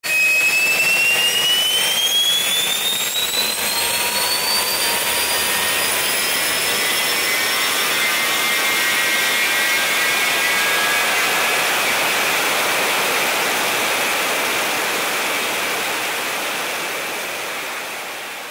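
Quadcopter drone's propellers whining loudly, several high tones over a rushing hiss. The tones rise in pitch over the first several seconds, then the sound slowly fades near the end.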